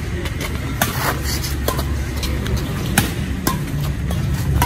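Badminton rackets striking a shuttlecock during a rally, sharp cracks roughly every half second to second, over a steady low rumble of city traffic.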